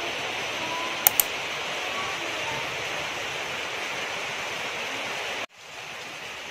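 Steady rain hiss with two sharp clicks about a second in. Near the end it cuts abruptly to a quieter, similar rain hiss.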